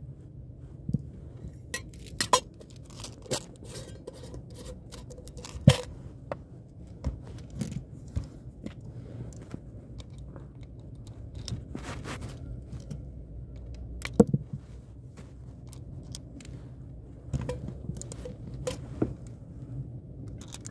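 Small metal clicks and clinks of brass shells being handled and pushed into the cylinder of a CO2 revolver, coming irregularly, about one a second, over a low steady rumble.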